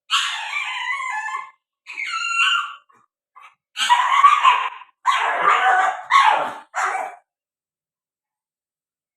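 A pug barking and whining in about five fussy outbursts, demanding a snack, then falling silent a little after two-thirds of the way through.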